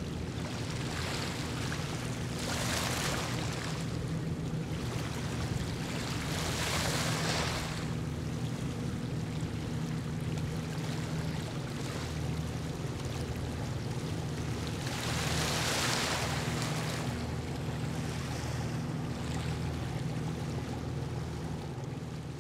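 Distant low rumble of a Japan Airlines Boeing 787-8's GEnx turbofan engines as the airliner climbs away after takeoff. Three swells of rushing noise rise and fall over it, about three, seven and sixteen seconds in.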